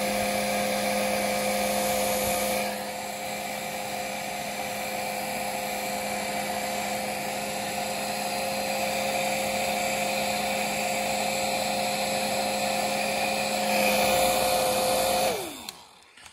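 Heat gun running with a steady fan whine and rushing air, shrinking heat-shrink tubing over a servo lead's connector. Near the end it is switched off and the whine falls in pitch as the fan winds down.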